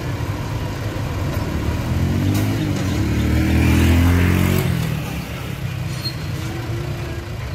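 Dump truck's diesel engine running, revving up as the hydraulic hoist lifts the tipping bed, loudest about four seconds in and then easing off.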